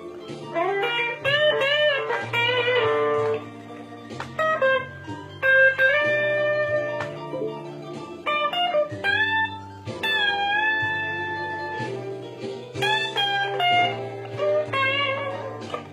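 Telecaster electric guitar playing blues lead lines with string bends and vibrato, held notes between quick runs, over steady low bass notes.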